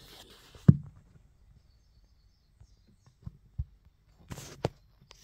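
Phone handling noise against timber: one dull thump less than a second in, a couple of light knocks, then brief scraping and rustling with clicks near the end.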